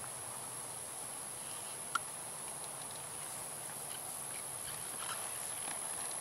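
Steady high-pitched drone of insects, with a sharp click about two seconds in and faint clicks and creaks of saddle tack as a rider mounts the horse near the end.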